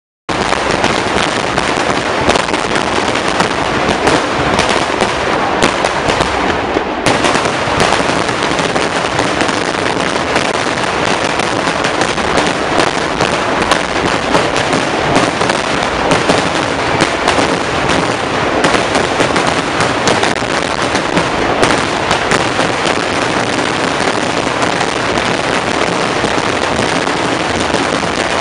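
Dense, unbroken barrage of large firecrackers and aerial crackers bursting, so many reports so close together that they merge into one continuous loud crackling din.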